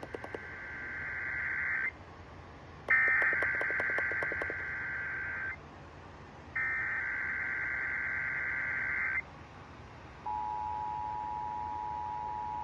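Emergency Alert System SAME header: three bursts of warbling digital data tones, each about two seconds long, with short pauses between them. About ten seconds in, the steady two-tone EAS attention signal (853 and 960 Hz) starts and holds. A run of clicks crackles over the second burst.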